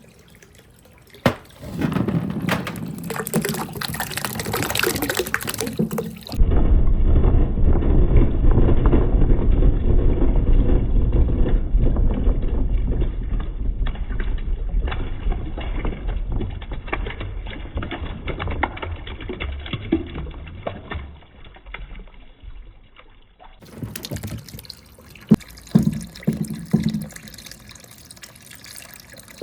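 Water running and splashing along a water marble run, with small knocks of balls rolling through the channel. For most of the middle stretch the sound turns muffled with a heavy low rumble.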